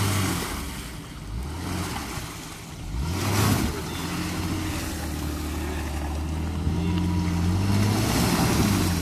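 2014 Jeep Grand Cherokee WK2's engine pulling the SUV through deep mud, its pitch rising as it revs up about three seconds in. The tyres churn and splash through muddy water in noisy bursts, the loudest about three and a half seconds in and again near the end.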